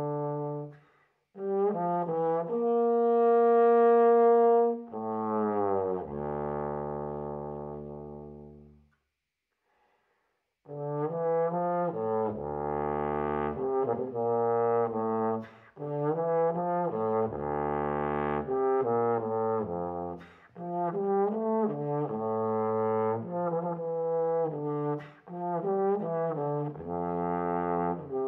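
Bass trombone playing an unaccompanied solo: a few notes, then a loud held note, then a low note that fades away. After a pause of about two seconds it goes on with busy phrases that drop again and again into very low notes.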